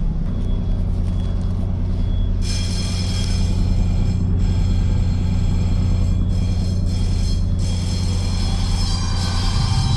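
Ferry's engines running with a steady low rumble under the deck. A steady high-pitched hum joins suddenly about two and a half seconds in.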